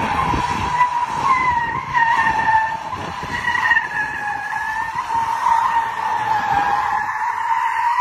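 Car tyres squealing on asphalt as a sedan slides sideways, a long screech whose pitch wavers up and down, with engine rumble beneath.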